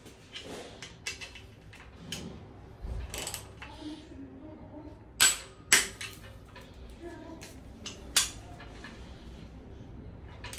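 Torque wrench clicking as bolts on a 4.4 V8 diesel engine block reach 140 Nm. There are sharp clicks, two close together about five seconds in and one more about eight seconds in, with fainter ratcheting and tool-handling knocks between.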